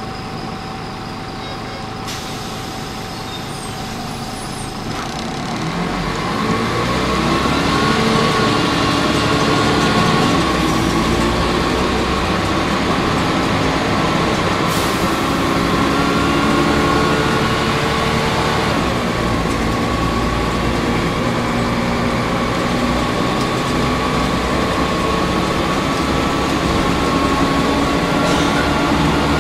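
Volvo B10L bus's diesel engine with its ZF automatic gearbox, heard from inside the cabin: quiet at first, then pulling away about five seconds in, the engine note climbing and dropping back with each gear change over a steady whine.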